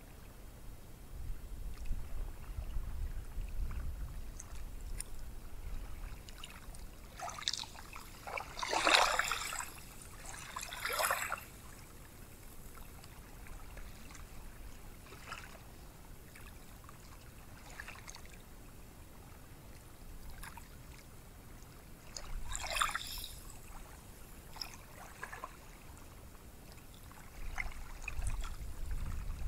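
Ocean surf on a sandy beach: a low steady wash, with louder rushes of breaking waves about a third of the way in and again about three-quarters of the way through.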